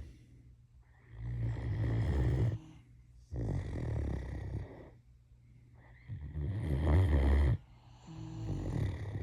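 A Great Dane snoring in her sleep: slow, rhythmic snores about a second and a half long, roughly every two and a half seconds, each followed by a quiet gap. The snore just before the end is the loudest, and the last one is still going as the clip ends.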